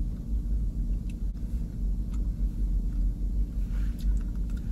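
Steady low rumble of a parked truck's engine idling, heard from inside the cabin, with a few faint clicks.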